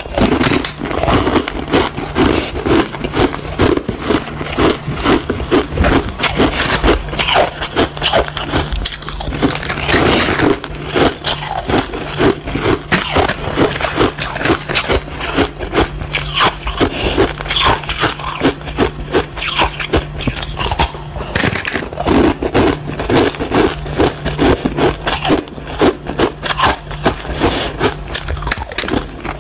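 Coloured shaved and crushed ice being bitten and chewed close to a clip-on microphone: a dense, continuous run of quick, irregular crunches.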